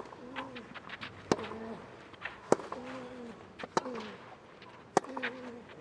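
Tennis rally: a racquet strikes the ball about every second and a quarter, five strikes in all, with fainter ball bounces on the clay between. A player gives a short grunt just after most of the strikes.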